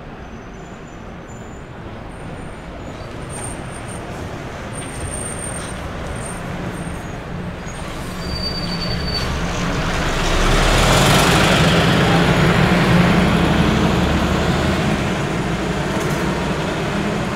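A bus drives past, its engine rumble and road noise building to a peak about ten seconds in, then fading as it moves off up the street. A few brief, faint high squeaks come near the start.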